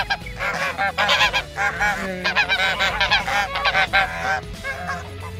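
A flock of domestic geese honking, with many overlapping calls that thin out near the end.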